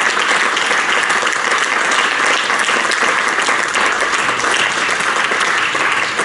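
Opera house audience applauding, dense clapping held at a steady level.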